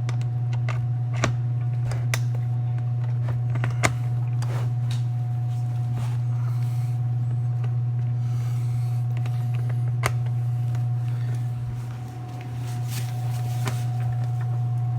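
A steady low hum runs throughout, dipping briefly about twelve seconds in, with scattered sharp clicks and taps as a pop rivet is worked into the roller bag's wheel mount.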